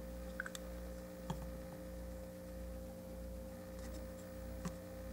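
Quiet steady background hum: a thin high tone over a low drone that swells and fades in a slow pulse. A few faint clicks from the plastic figure being handled.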